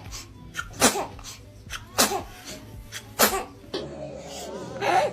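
A baby sneezing three times in a row, about a second apart, each a short sharp burst.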